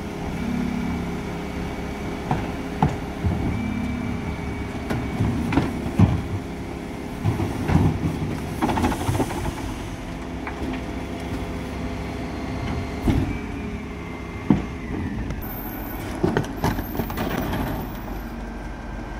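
Refuse truck idling while its Terberg OmniDe hydraulic bin lift tips and shakes two wheelie bins into the hopper and lowers them, with a faint whine and repeated sharp knocks and bangs of the plastic bins against the lift. Near the end the emptied bins are wheeled away.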